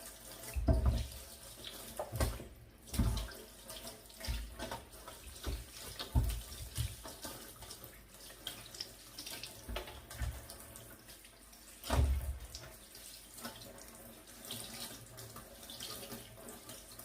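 Kitchen tap running into a sink as tomatoes are rinsed under it, with irregular knocks and bumps from handling them in the sink, the loudest about a second in and again about twelve seconds in.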